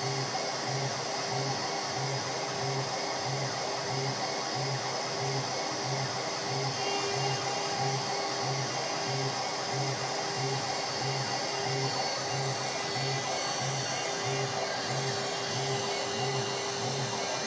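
CNC router running: the spindle's steady whine over the rush of its dust extraction, with a low pulsing about three times a second. It is milling a wooden board.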